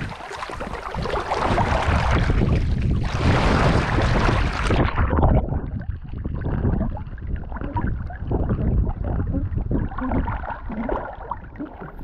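Wind buffeting a GoPro camera's microphone, a heavy rumble with irregular rustling and jostling. About five seconds in the high end drops away and the noise turns duller.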